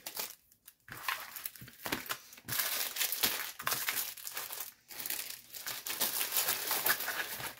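Diamond painting canvas and its clear plastic cover film crinkling and rustling in irregular spells as the sheet is handled and turned over.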